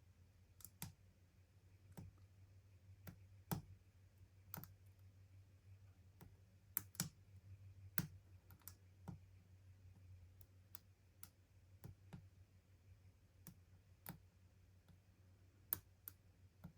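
Faint, irregular clicks of a lock pick working the pins in a padlock's keyway, roughly one a second, over a steady low hum.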